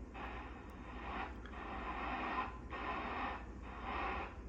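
National HRO-500 shortwave receiver's speaker hissing with band static on 20 metres (14 MHz). The hiss comes in stretches of about a second, broken four times by brief dropouts, over a faint steady low hum.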